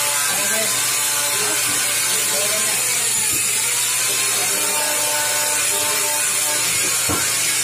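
Angle grinder with an abrasive disc running steadily as it grinds the edge of a stainless steel sheet, a continuous high hiss of disc on metal.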